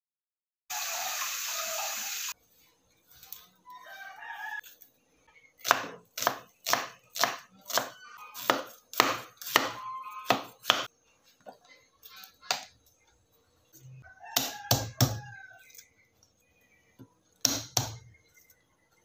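Cleaver chopping on a cutting board: a run of about a dozen sharp chops, roughly two a second, then a few more chops in twos and threes. Near the start there is a loud, noisy sound lasting about a second and a half.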